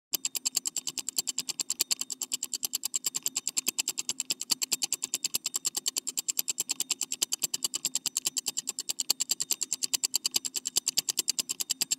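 Rapid, evenly spaced ticking, about eight clicks a second, over a faint steady hum.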